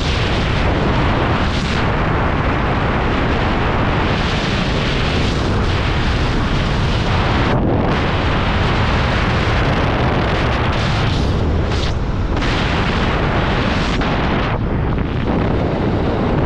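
Wind rushing over a skydiver's camera microphone in freefall: loud, steady buffeting noise, with brief dips in the hiss about a third of the way in and again near the end.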